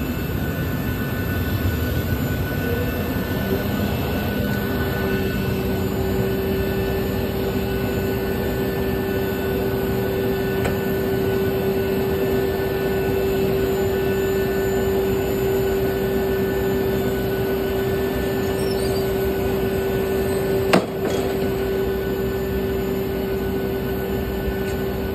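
Built-in forward airstair of a Boeing 737 MAX 8-200 deploying under its own power: a steady motor hum comes in about five seconds in and holds over a constant mechanical rumble. A single sharp clunk comes about twenty seconds in.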